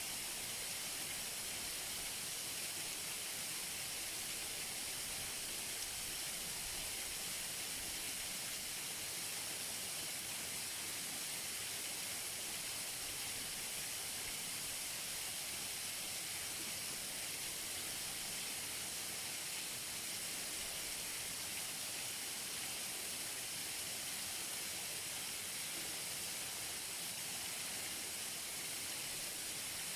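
Waterfall heard close up: falling water making a steady, even hiss, strongest in the high range.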